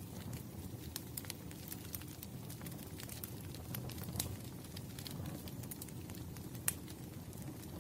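Wood fire burning: a steady low rumble with sharp, scattered crackles and pops from the burning logs, two of them louder, about four seconds in and near the end.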